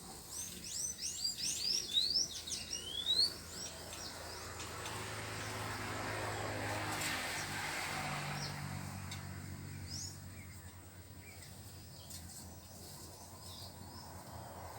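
Small birds chirping outdoors: a fast run of quick rising chirps for the first three seconds or so, then scattered calls. In the middle, a low hum with a rushing noise swells and fades over several seconds.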